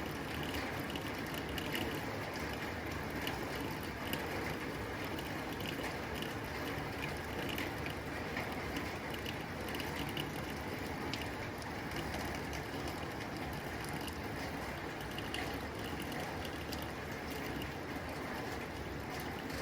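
Rain falling on a tin roof: a steady hiss of rain, dotted with many sharp ticks of drops striking the metal.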